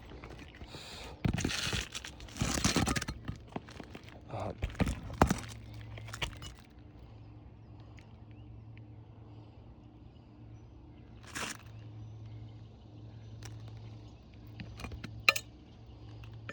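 Asphalt shingles being lifted and handled on a roof: crinkling and scraping rustles, then a few sharp knocks about five seconds in, and scattered light clicks later. A low steady hum runs underneath from about five seconds in.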